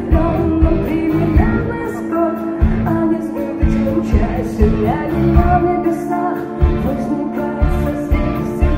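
Live rock band music: a woman singing to an acoustic guitar over a steady low beat of bass and drums.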